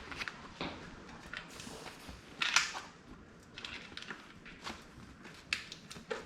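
Handling noises from hands-on work with a bicycle tyre: scattered clicks and rustles, with one louder scrape about two and a half seconds in.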